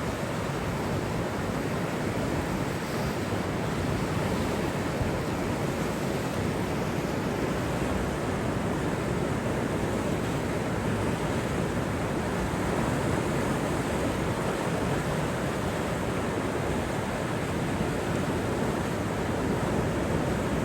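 Steady rushing noise of water and wind, with no distinct splashes or knocks.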